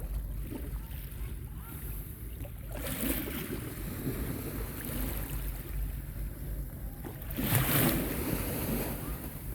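Small sea waves washing up on a beach, with two louder surges: one about three seconds in and a stronger one about seven and a half seconds in. Wind rumbles steadily on the microphone underneath.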